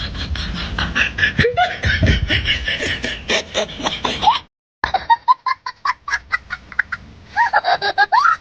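A person making rapid, stuttering vocal noises, about eight to ten pulses a second, with a few rising squeaky sounds. The sound drops out completely for a moment about halfway through.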